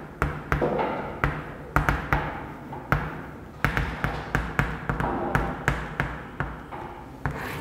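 Writing on a board: a run of sharp, irregular taps, a few a second, with faint scraping between them.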